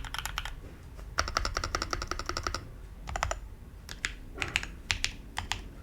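Typing on a mechanical keyboard with lubed Jwick Ginger Milk linear switches on a steel plate in an aluminium Tofu60-style case. A fast run of keystrokes at the start and a dense burst of typing about a second in, then slower, scattered keypresses.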